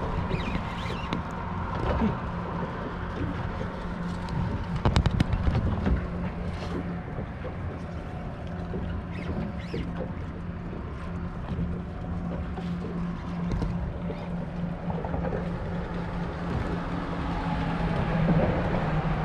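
Open-boat ambience: a steady low motor hum under wind and water noise, with a brief cluster of sharp clicks about five seconds in.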